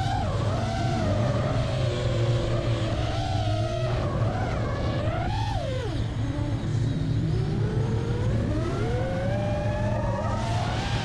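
The brushless motors and propellers of an iFlight Nazgul 5 FPV quadcopter whining, their pitch rising and falling with the throttle. The pitch climbs to a peak and drops sharply about six seconds in, then climbs slowly again near the end, over a steady low hum.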